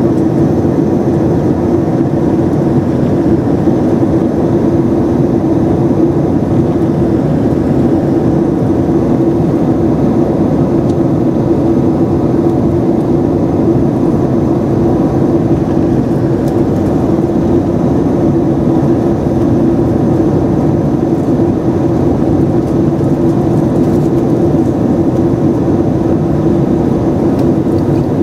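Steady cabin drone of a Boeing 767-300ER in flight: its General Electric CF6 turbofan engines and the rush of air over the fuselage, heard from a window seat beside the engine. The noise is loud and even throughout, with a low hum running under the hiss.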